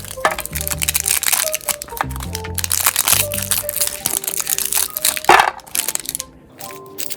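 Background music, with dense crackling and crunching as a meat grinder crushes what is fed into it.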